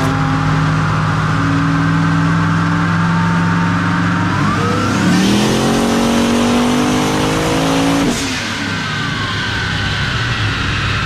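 Twin-turbocharged 6.0 L LS (L76) V8 in a 1969 Camaro on a chassis dyno: running steadily, then pulling hard about four seconds in with the engine pitch climbing for some three seconds. About eight seconds in it cuts off suddenly and the pitch falls away with a high whine gliding down, before it settles back to steady running.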